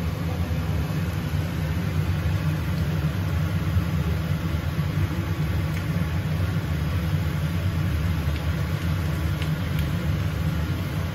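Steady low rumble of a kitchen range hood extractor fan running over a wok on the stove, with a few light clicks of a metal spatula against the wok about midway and near the end.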